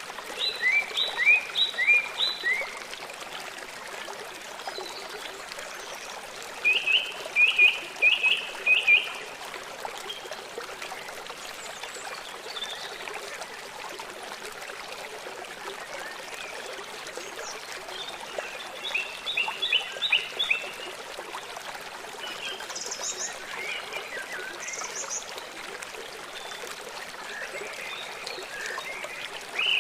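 A steady rush of running water, with short bursts of quick, high chirps of four to six notes each, heard about three times loudly and a few times more faintly.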